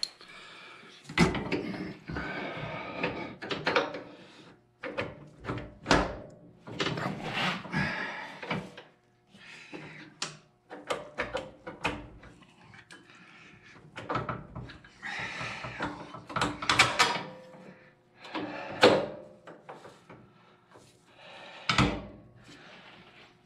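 Metal parts of a Cub Cadet 154 Lo-Boy garden tractor's clutch and drive being handled and fitted by hand: irregular clanks, knocks and scraping, with pauses between.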